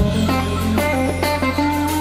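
Live rock band playing: electric guitar over bass guitar and drums.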